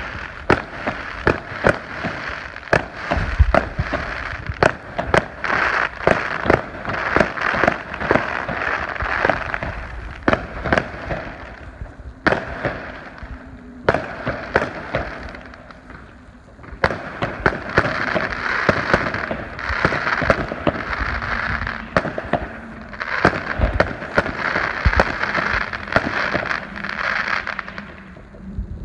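Fireworks going off: a dense run of sharp bangs and crackling. It eases off from about twelve seconds in and builds again after about sixteen seconds.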